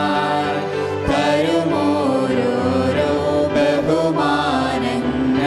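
Malayalam Christian hymn sung with long held notes over instrumental accompaniment.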